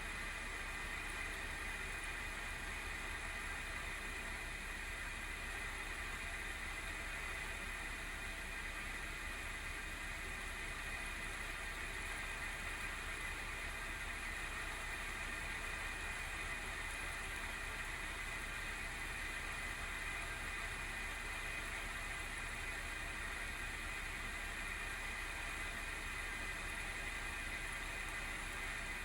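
Cooling fan (FDC10U12D9-C) of an ASUS GeForce RTX 3060 12GB Phoenix graphics card running steadily under benchmark load, a continuous whir with a band of noise in the upper-middle range and several faint steady tones. The abnormal noise is from a failing fan, which the owner puts down to either a wobbling shaft or the bearing oil having run dry.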